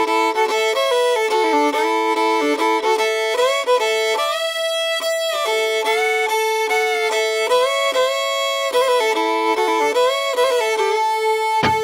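Solo fiddle playing an unaccompanied tune, with a note held as a drone under the moving melody.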